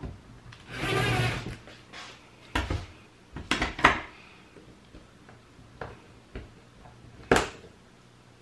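A small electric drill runs briefly, a short whir about a second in. Then come several sharp clicks and knocks as metal hand tools are handled and set against the plastic breaker case. The loudest knock is near the end.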